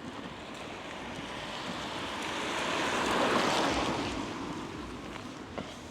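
A vehicle passing on a wet road: a rushing tyre hiss that swells, peaks about three seconds in, then fades, over a steady background hiss.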